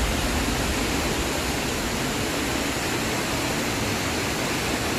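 Steady rushing of a swollen, flooded river in spate: an even, unbroken noise of fast-moving water.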